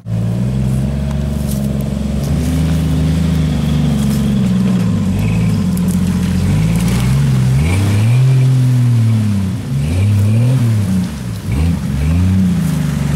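Jeep Wrangler's engine working through a mud hole, running steadily at first, then revving up and down in quick throttle blips in the second half.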